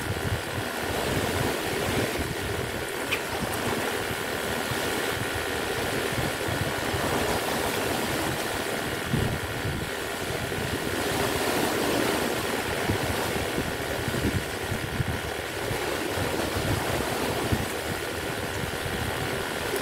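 Strong sea wind buffeting the microphone in irregular gusts, over waves on rough water.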